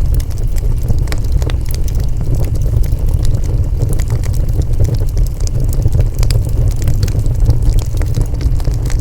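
Wood fire crackling, with many scattered sharp pops and snaps over a steady low rumble.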